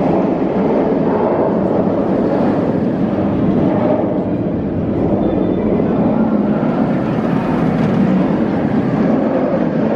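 Nemesis, an inverted steel roller coaster, with its train roaring around the track in a steady, loud rumble.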